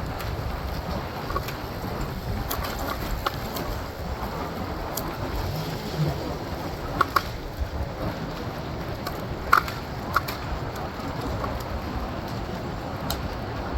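Riding an electric scooter through city traffic: a steady rumble of road and wind noise, broken by several sharp clacks, a pair about seven seconds in and another pair around nine and a half to ten seconds in.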